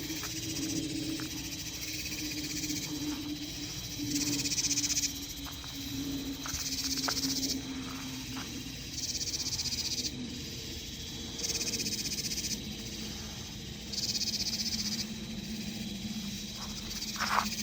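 Night insects calling in pulses about a second long, repeating every two to three seconds. A low steady hum runs underneath.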